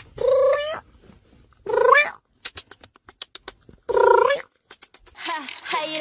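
A cat meowing three times, each meow about half a second long, with faint clicks in between. Music comes in near the end.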